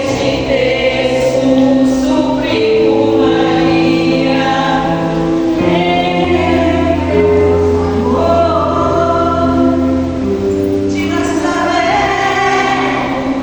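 A choir sings a Catholic Marian hymn over instrumental accompaniment. Long held notes change every second or so over a steady bass line.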